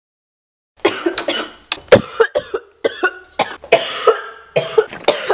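A woman coughing hard in a rapid, unbroken fit of many coughs, starting about a second in. The coughing comes from having breathed in the spices of a sweet chili popcorn seasoning.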